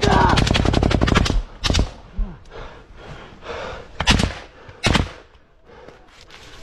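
Automatic rifle fired on full auto in a long rapid burst that stops about a second and a half in, followed by three single loud shots a second or two apart.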